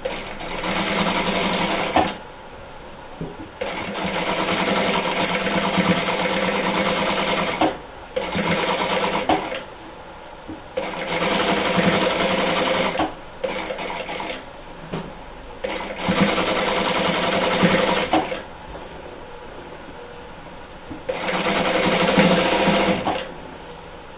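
Sewing machine stitching in several runs of one to four seconds, stopping and starting again between them, as it sews a seam along the edge of a patchwork border on a dish towel.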